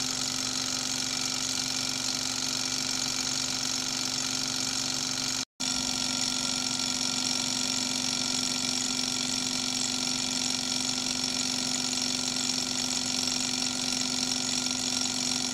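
Small model alpha-type Stirling engine running steadily, its flywheel and connecting rods spinning with an even mechanical whir. The sound cuts out for an instant about five seconds in, then carries on unchanged.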